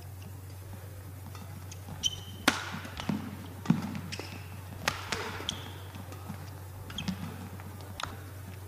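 Badminton rally: rackets strike the shuttlecock in sharp cracks roughly every one to one and a half seconds, mixed with short shoe squeaks and footfalls on the court floor. A steady low hum runs underneath.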